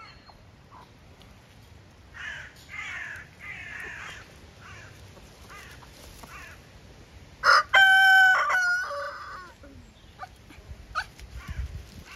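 Chickens clucking, then a rooster crows once, loudly, a bit past halfway through; the crow lasts about a second and a half.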